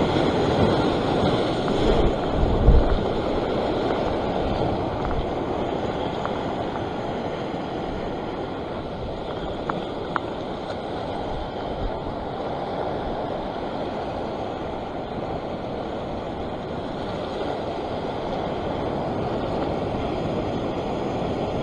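Sea surf washing and surging over a rocky shoreline, with wind rumbling on the microphone in the first few seconds. Two faint clicks about ten seconds in.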